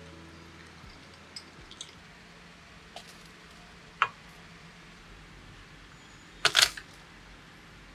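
A few light, scattered clicks and knocks, then a sharper click about four seconds in and a short cluster of louder sharp clacks about six and a half seconds in.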